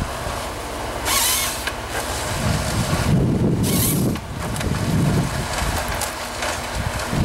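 Heavy forestry harvesting machine running, with wind buffeting the microphone and two brief surges of high hiss.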